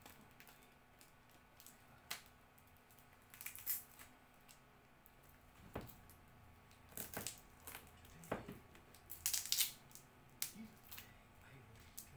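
Clear plastic packaging being handled and unwrapped by hand: scattered crinkles and sharp clicks, with the loudest bunch about nine seconds in.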